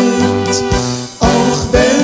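Song music: held chords over a steady beat of about two strikes a second.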